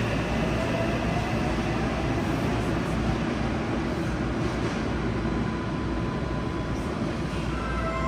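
Steady hum and hiss of a stopped subway car's air conditioning and ventilation, heard inside the car with its doors open at an underground platform. A melody starts near the end.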